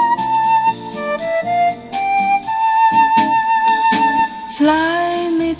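Recorded music played through the repaired Audio Space AS-8i amplifier: a flute playing a slow melody over a soft plucked accompaniment. A woman's voice starts singing about four and a half seconds in.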